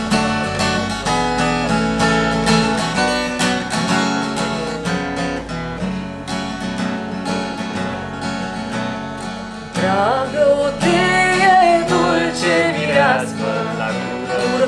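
Acoustic guitar playing a chord accompaniment. About ten seconds in, a woman's voice comes in singing a Romanian song over it.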